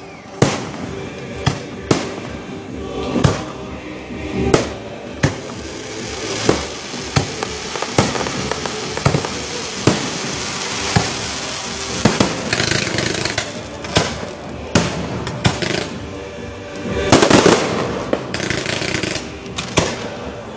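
Aerial firework shells bursting in a string of sharp bangs, about one or two a second, with stretches of dense crackling. Music plays underneath.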